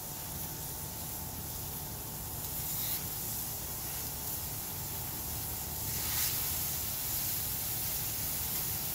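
Raw beef burger patties sizzling on a hot Blackstone flat-top griddle: a steady hiss that gets louder in steps about three and about six seconds in as more patties go down.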